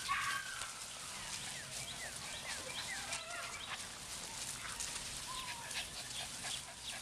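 Tibetan terrier puppies making short, high-pitched squeaks and whimpers, with scattered small clicks and scuffles of play.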